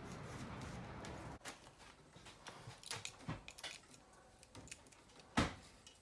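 Scattered light clicks and rustles of electrical cable being handled and fed through, with one sharper click near the end. A soft rushing noise underneath stops about a second and a half in.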